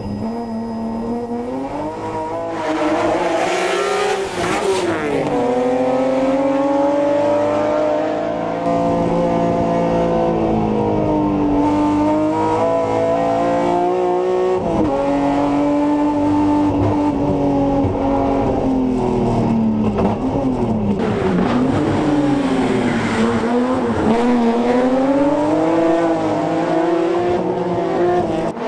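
BMW M3 race car's engine under hard driving, its pitch climbing and falling again and again as it accelerates, shifts and brakes. A harsh hiss rises over it for a couple of seconds a few seconds in, and again about three-quarters through.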